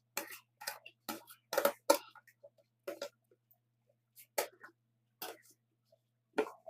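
Kitchen handling sounds: short clicks and rustles of food and containers being moved about, scattered roughly one or two a second, over a faint low steady hum.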